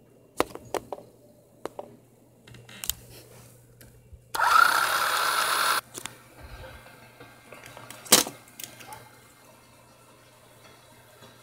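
Plastic toy cars and track clicking and knocking, then a battery-powered Hot Wheels track booster's motor whirring for about a second and a half, starting with a rising whine and cutting off suddenly. A sharp plastic clack follows a few seconds later.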